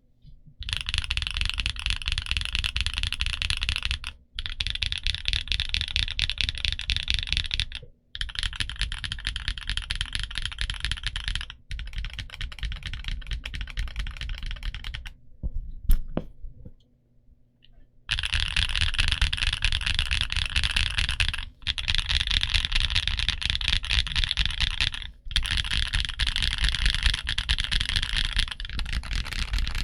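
Fast typing on a Portico68 mechanical keyboard with Gateron Green Apple heavy tactile switches and Black Label Cherry-profile PBT keycaps: dense runs of key clicks lasting a few seconds each, broken by brief pauses. About fifteen seconds in the typing stops for roughly three seconds, with one sharp click in the pause, then resumes.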